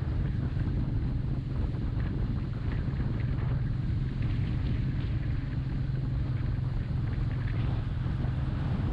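Royal Enfield Meteor 350's single-cylinder engine running steadily while riding, with wind noise on the microphone.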